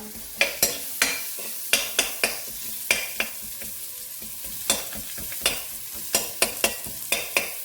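Onions sizzling in hot oil in a wok on the highest heat, with the utensil knocking and scraping against the wok as the onions are stirred and broken apart, a few irregular clacks a second.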